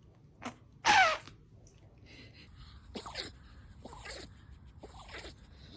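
A dog sneezing: one loud, sudden burst about a second in. Several fainter short sounds follow, roughly a second apart, each falling in pitch.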